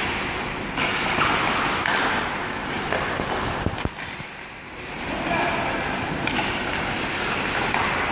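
Ice hockey skates scraping and hissing across the rink ice, with one sharp clack of stick on puck a little before the middle.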